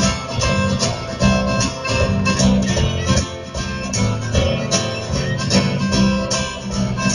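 Live blues band playing an instrumental passage without singing: acoustic guitar over double bass and a steady drum beat.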